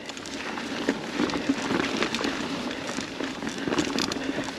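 Mountain bike tyres rolling over a dirt trail strewn with dry fallen leaves: a steady crackling noise with many small scattered clicks and rattles from the bike.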